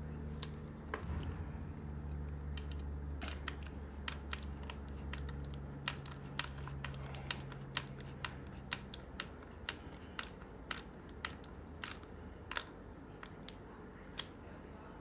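Small, sharp clicks at an uneven pace of one or two a second as Phillips screws are turned and tightened down with a hand screwdriver. A low steady hum underneath stops about two-thirds of the way through.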